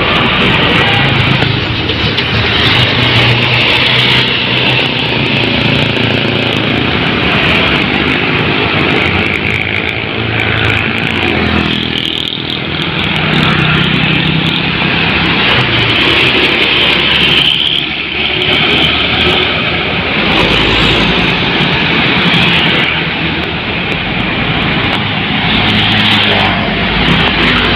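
Loud, continuous road traffic: buses and other heavy vehicles passing close by, engine drone and tyre noise, easing briefly about twelve and eighteen seconds in.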